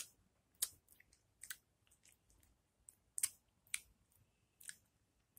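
Wet mouth sounds of someone sucking and biting a raw lemon slice: about half a dozen short, sharp smacks, irregularly spaced.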